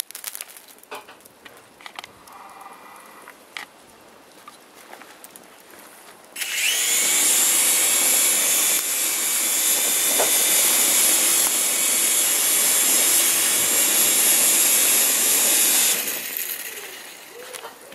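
Mini indoor toy helicopter's small electric motor and spinning rotor, whirring with a high steady whine and a rush of air as it is held over the grill to fan glowing charcoal briquettes. It starts suddenly about six seconds in, runs steadily for about ten seconds and stops near the end; before it only faint ticks are heard.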